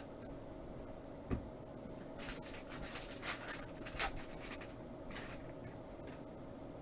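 Handling of a foil trading-card pack: a knock about a second in, then crinkling and rustling as the wrapper is opened and the cards are slid out, with a sharp click partway through and a last short rustle.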